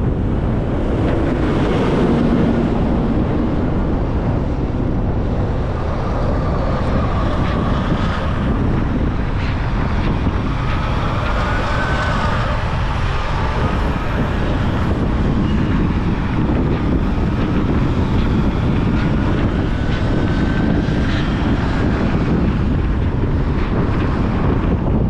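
Steady road and wind noise of a car driving, with faint engine tones rising and falling now and then.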